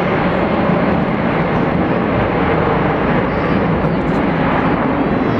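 Jet cargo aircraft engines running loud and steady, a broad continuous rushing noise.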